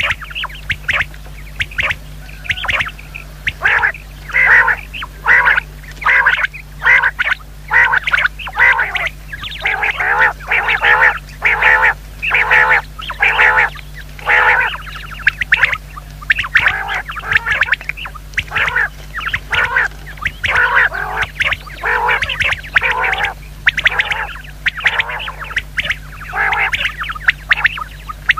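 Common quail calling: a long run of short, harsh, repeated calls, about one or two a second.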